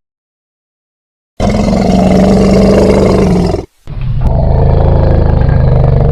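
Elephant sound effect: two long, low roars, the first starting about a second and a half in after silence, the second following a brief gap and still going at the end.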